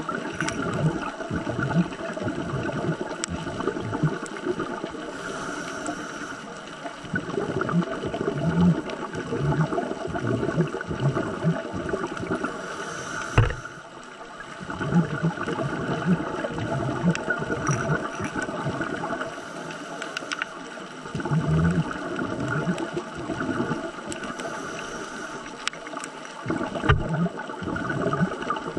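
Scuba diver breathing through a regulator underwater: four short hissing inhales, about six or seven seconds apart, with bubbling gurgles of exhaled air in between. A steady hum runs underneath.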